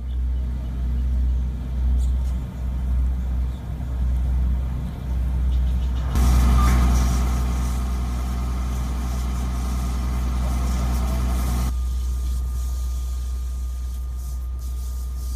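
A deep, steady, engine-like rumble. About six seconds in it turns louder and hissier, with a low hum, then drops back abruptly about twelve seconds in.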